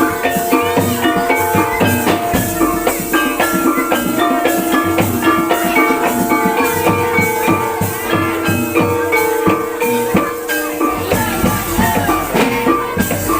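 Javanese barongan gamelan music: dense, fast drumming and rattling percussion over held, ringing pitched tones.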